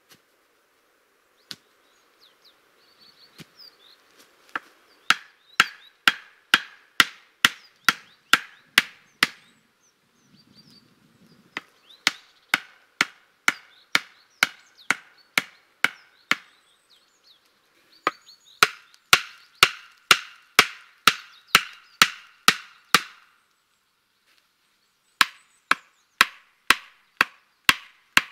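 A hatchet knocking upright wooden stakes into the ground, sharp wooden blows about two a second in four runs with short pauses between.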